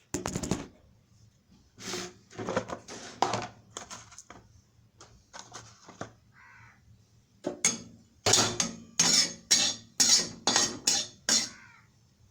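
Vegetables being stir-fried: a spatula scrapes and tosses them around a hot pan in a series of short strokes, with a quicker run of about seven near the end, over a faint sizzle.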